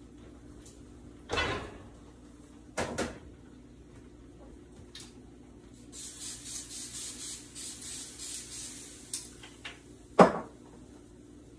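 Aerosol cooking spray hissing in a run of short pulses for about three seconds, onto a waffle iron. Knocks of kitchen items being handled come before it, and a sharp knock, the loudest sound, comes soon after.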